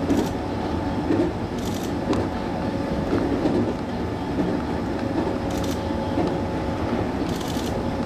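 221 series electric rapid train running at speed, heard from on board: a steady rumble of wheels on rail under a faint steady hum, with four brief high hisses.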